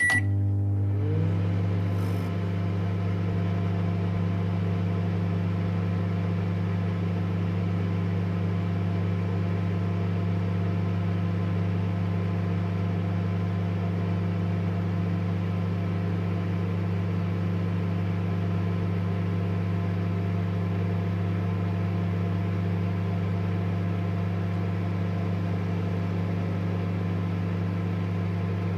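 Microwave oven running while heating food: a steady, even low hum.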